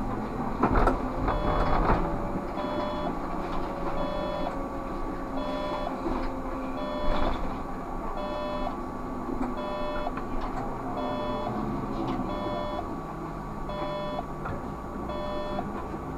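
Electronic beeper in the Škoda 30Tr SOR trolleybus cab sounding repeatedly, a short beep about every three-quarters of a second, starting a couple of seconds in. Under it the trolleybus runs with a faint electric whine that falls slowly in pitch.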